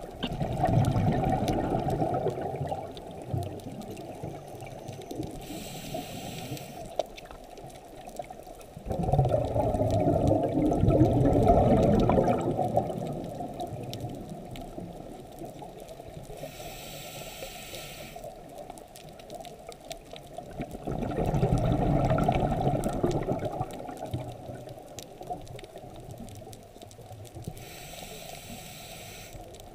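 Scuba diver breathing through a regulator underwater: three long rushes of exhaled bubbles about every eleven seconds, each followed a few seconds later by a short, fainter hiss of the regulator on the inhale.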